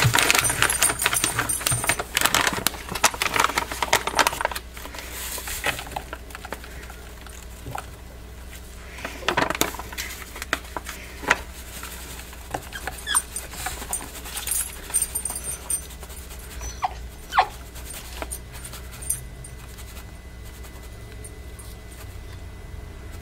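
A plastic powder bag crinkles loudly over the first four seconds or so as it is handled and opened. Then come soft rustles as powder is poured from it into a plastic bowl, with a puppy whining briefly several times.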